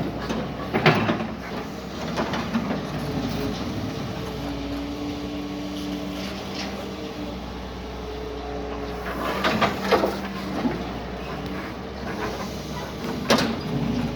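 Doosan DX140 excavator's diesel engine running under work, with steady whining tones that shift in pitch as the hydraulics are worked. Short loud bursts of noise come about a second in, twice around the tenth second and once near the end.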